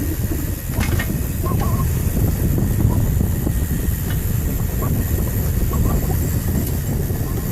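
Vehicle on the move, heard from on board: a steady low rumble of engine, road and wind, with a few sharp knocks about a second in and light scattered rattles.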